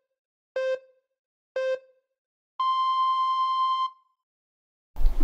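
Electronic countdown beeps: two short low beeps about a second apart, then one long beep an octave higher, as in a race-start countdown. Other sound cuts in abruptly near the end.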